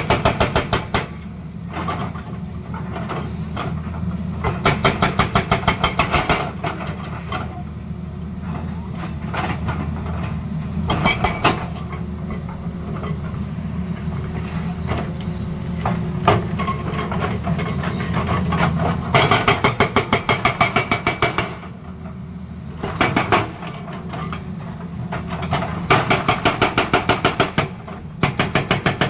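Hydraulic rock breaker on a Tata Hitachi excavator hammering rock in several bursts of rapid, evenly spaced blows lasting a second or two each. Under them runs the excavator's diesel engine.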